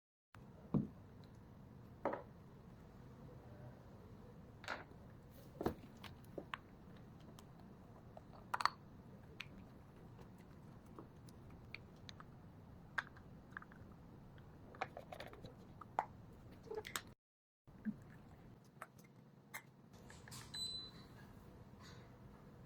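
Light clicks and knocks, irregular and spaced out, as the parts of a handheld portable espresso maker are handled and fitted together.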